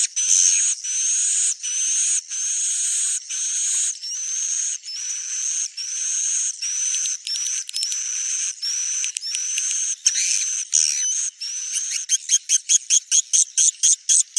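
Swiftlet calls: a steady run of rasping chirps, each about half a second long with a rising whistled note, about one and a half a second, breaking into a fast series of short chirps near the end.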